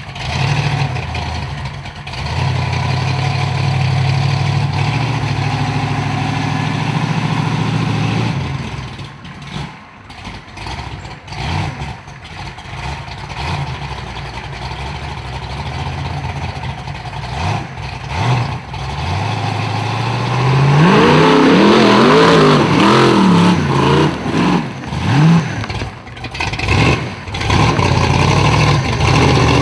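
Formula Offroad buggy's engine running, steady at first, then revved up and down again and again from about two-thirds of the way through, its pitch rising and falling with each blip.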